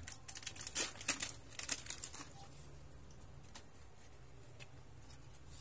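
Thin plastic packaging sleeve crinkling and tearing as it is pulled open by hand: a quick run of sharp crackles over the first two seconds, then only faint rustles and ticks.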